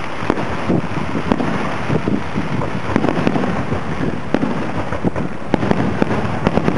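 Aerial fireworks display: a rapid, continuous barrage of shell bursts and crackling, with several bangs a second at irregular spacing.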